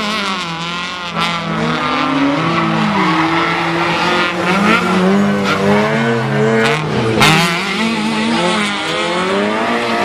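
Rally cars at full effort on a night special stage passing one after another, their engines revving high with the pitch climbing and dropping again and again as they drive through.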